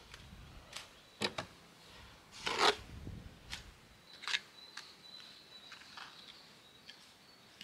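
Steel pointing trowel scraping and tapping fresh mortar against stone, packing the joint under timber cladding: a string of short, sharp scrapes and clicks, the loudest and longest about two and a half seconds in.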